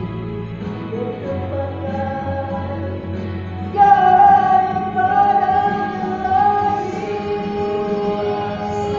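Two men singing a nasheed together, holding long drawn-out notes; the singing gets louder about four seconds in.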